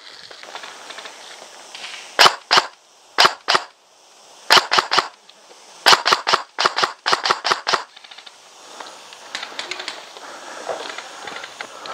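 Airsoft guns firing: sharp shots in two pairs, then a triple, then a quick string of about ten shots in under two seconds.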